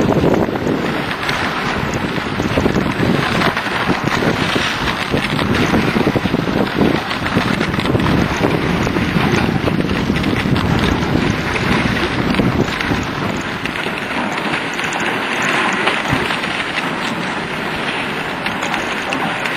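Dog sled gliding over packed snow: the runners hiss and scrape steadily on the trail, mixed with wind rumbling on the microphone.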